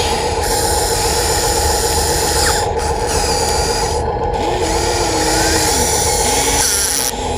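Radio-controlled model excavator working: a steady high motor whine with a lower whine that dips and shifts in pitch several times as the load changes.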